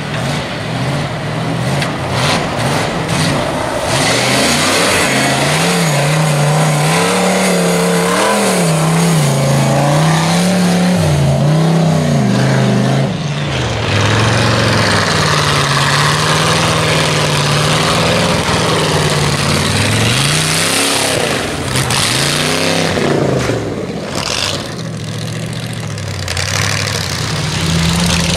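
Off-road race rig's engine revving up and down over and over as it is driven hard through snow and mud, with a break about halfway through.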